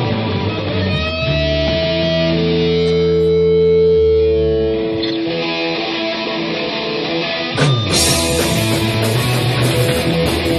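Hardcore punk band playing live: distorted electric guitar and bass hold long ringing chords that fade out. About three-quarters of the way through, a sharp drum and cymbal hit brings the full band back in.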